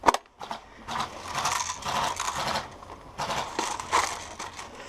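Airsoft electric gun firing two full-auto bursts, its motor and gearbox cycling with a fast buzzing rattle: one about a second in lasting under two seconds, a shorter one a little past three seconds.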